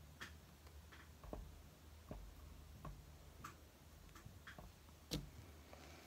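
Near silence: quiet room tone with a few faint, irregular clicks and taps from hands handling a piece of soft clay over a work board. The loudest tap comes about five seconds in.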